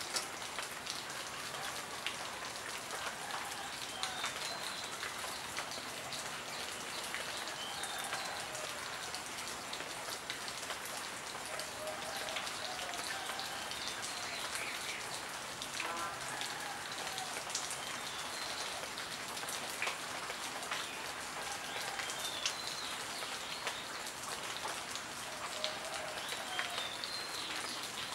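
Steady rain falling on leaves: a dense, even patter of drops with many small individual drips.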